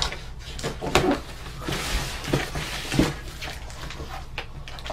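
Cardboard shipping box being opened: packing tape slit with a flathead screwdriver and the flaps pulled back, a scraping tear with knocks about one and three seconds in.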